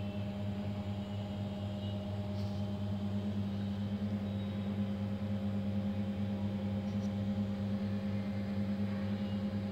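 VD-680-PS LCD panel bonding machine humming steadily while its head presses the alignment paper during its automatic profile.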